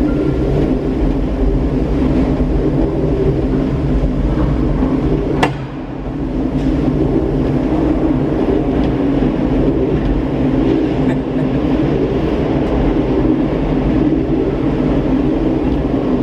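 Gateway Arch tram capsule travelling up inside the arch leg: a steady mechanical rumble with a low hum, and one sharp click about five and a half seconds in, after which the rumble dips briefly.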